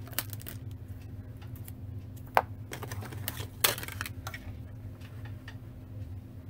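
Clear acrylic cutting plates from a die-cutting machine being handled and stacked, clacking and knocking against each other and the table a few times, loudest about two and a half and three and a half seconds in.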